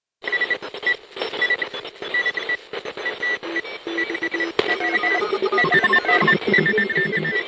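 Synthetic Morse code: short and long high-pitched electronic beeps keyed on and off over static hiss, layered with other computer-style blips at lower pitches that grow busier toward the end. It starts about a quarter second in, after a moment of silence.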